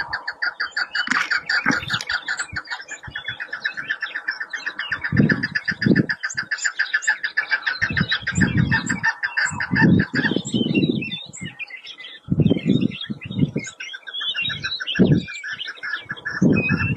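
Chukar partridges calling: a long, fast run of evenly spaced chattering notes, with deeper separate calls breaking in every second or two. The run fades a bit past halfway and starts again near the end.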